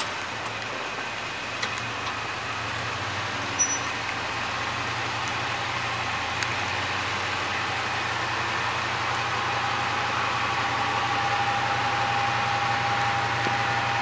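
Engine idling steadily under the hiss of rain, with a faint steady tone joining about two-thirds of the way through.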